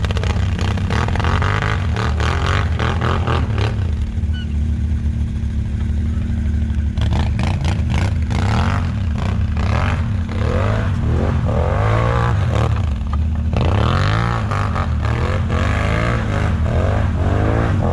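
Quad (ATV) engine revving up and down again and again as it churns through deep snow, over a steady low engine hum. The revving is busiest in the second half.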